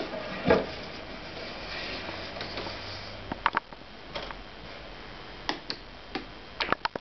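Scattered small clicks and light knocks: a louder thump about half a second in, a few sharp clicks through the middle and a quick run of clicks near the end, over a faint hiss that drops away about three seconds in.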